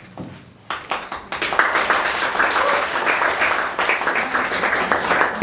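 Audience applauding: a few scattered claps about a second in, quickly filling out into steady applause from many hands.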